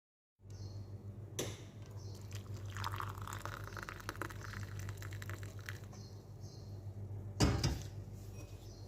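Freshly boiled cardamom and cinnamon water being poured out, splashing for about three seconds, with a sharp knock near the end.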